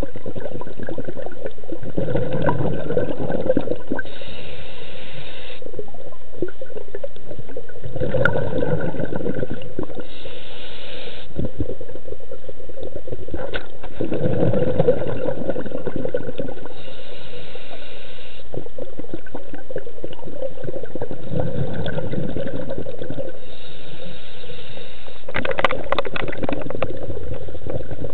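Scuba diver breathing underwater: every six seconds or so, a rush of exhaled bubbles, followed by the hiss of the regulator on the inhale. A run of sharp clicks comes near the end.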